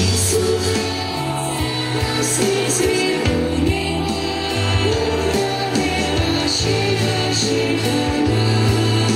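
Children's choir singing a song together, accompanied by bass and drums with long held bass notes under the voices.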